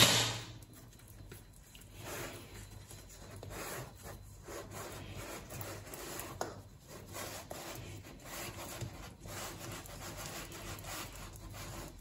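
Hands pressing and easing rolled shortcrust pastry into a metal flan tin on a wooden worktop: soft, irregular rubbing and patting. It opens on the tail of a sharp knock, the rolling pin set down on the wood.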